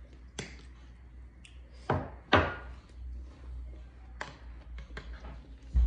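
Metal spoons knocking and scraping in a ceramic dish of fruit salad: a handful of sharp clicks, the loudest two close together about two seconds in.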